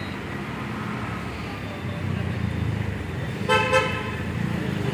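Road traffic running steadily, with a vehicle horn tooting once, briefly, about three and a half seconds in.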